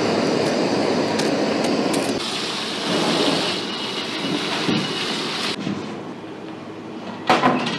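Kitchen tap water running into a stainless steel pan while rice is washed by hand, a steady hiss that cuts off sharply about five and a half seconds in. A short clatter of knocks comes near the end.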